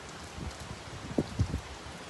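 Steady rain falling, a constant hiss, with a few short, low thumps together about a second in.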